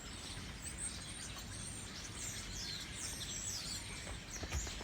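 A large flock of small birds chirping all at once, many short overlapping calls and falling chirps over steady outdoor background noise.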